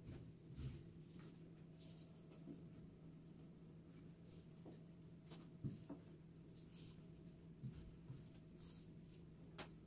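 Near silence: faint, scattered soft rustles and light taps from handling, over a low steady hum.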